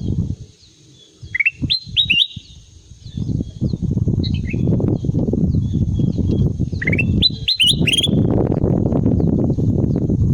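Kutilang emas (a bulbul) singing short phrases of quick rising whistled notes, three times. A loud low rumbling noise sets in about three seconds in, with a faint steady high hiss throughout.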